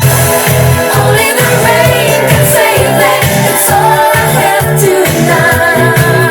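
Pop song: singing over a bass line that pulses on a steady beat.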